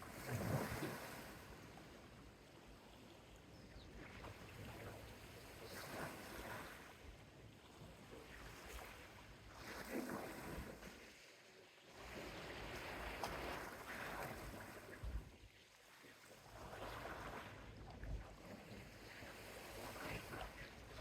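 Soft sea waves washing onto a small beach, each wash swelling and fading every three to four seconds. The first wash, about half a second in, is the loudest.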